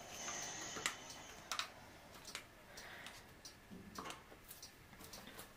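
Faint, scattered light clicks and taps of plastic paint cups and stir sticks being handled on the table, a few irregular ticks over several seconds.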